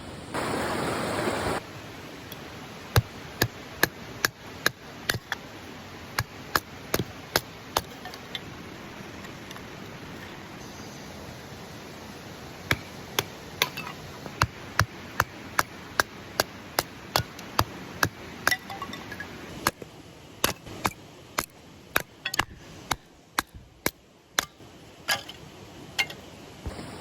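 Repeated sharp strikes, like a hammer or a blade being struck through wood, about two a second in two long runs with a pause between. A short burst of rushing noise comes just before them.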